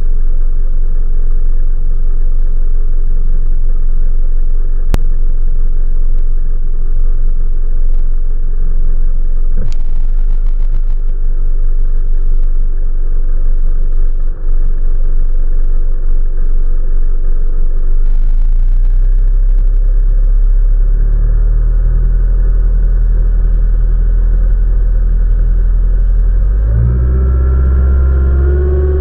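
Outboard motor driving an aluminum fishing boat across a lake, a steady low rumble of engine and hull on water. Near the end the engine note rises as the boat speeds up.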